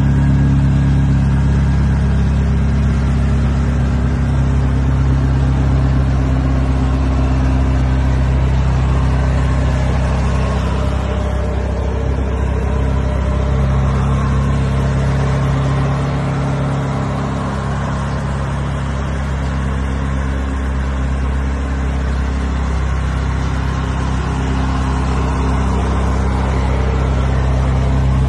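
A car engine idling steadily, a low even hum that dips slightly about two-thirds of the way through.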